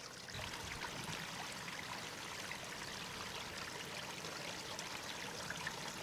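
Creek water trickling and flowing steadily.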